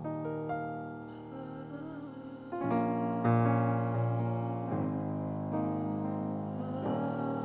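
Slow instrumental music led by piano or keyboard: held chords that change every second or two, swelling louder about two and a half seconds in.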